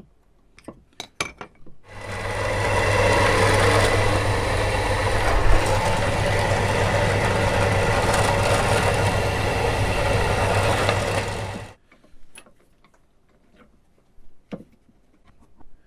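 Electric drill running for about ten seconds, boring the marked bolt holes for the bridge into the wooden body of an mbira; it starts after a few handling clicks and cuts off suddenly. More small clicks of handling follow.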